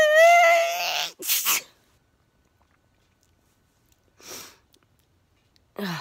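A woman's sneeze: a loud, high-pitched 'ahh' that rises and holds for about a second, then a sharp hissing 'choo' about a second and a half in. A short faint breath follows about four seconds in.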